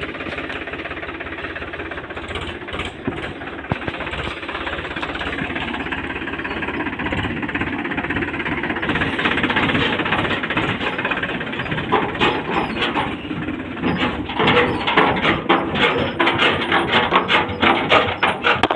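Tractor diesel engine running: a steady rumble that turns into an uneven pulsing beat in the second half.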